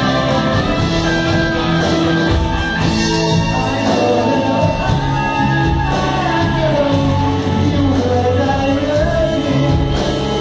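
Live rock band playing: electric guitars, bass, piano and drums, with a singer's voice over them, the wavering sung line clearest in the second half.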